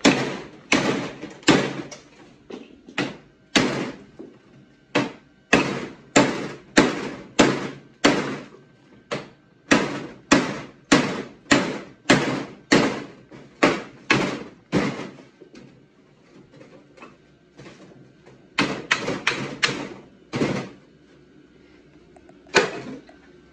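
Repeated sharp metal blows, about two a second, each with a short ring, knocking a rusted brake rotor off its hub. They stop about fifteen seconds in, then a few more blows come in quick succession, and one last blow near the end.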